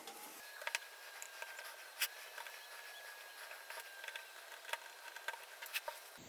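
Faint, scattered small clicks and taps of hands handling and taking apart a homemade soldering-station prototype board, with a faint steady high tone underneath for most of it.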